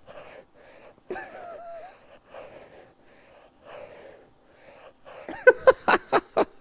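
A small puppy sniffing and snuffling close into a microphone in a run of soft breathy puffs, then people laughing in quick loud bursts near the end.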